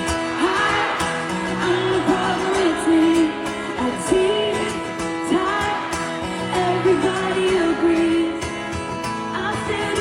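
Pop song with a woman singing a melodic line over a steady instrumental backing.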